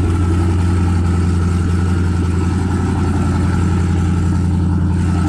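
Kohler Command Pro 15 single-cylinder engine running steadily at an even speed; the sound cuts off suddenly at the very end.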